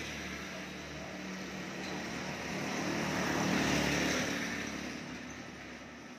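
A passing motor vehicle: a steady engine and road noise that swells to its loudest about three and a half seconds in, then fades away.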